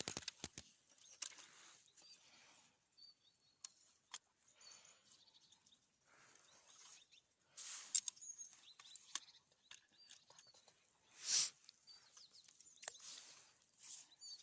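Faint outdoor ambience with short bird chirps now and then, scattered clicks and rustles, and a louder short whoosh about eleven seconds in.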